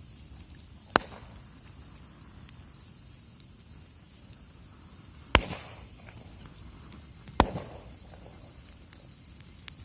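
Burning wood in a campfire giving three sharp, loud pops, about a second in, past the middle, and two seconds later, with faint crackles between them over a steady high hiss.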